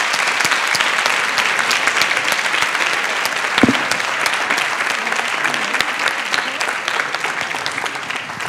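Audience applauding, a dense patter of many hands clapping that fades away near the end, with one brief low knock about three and a half seconds in.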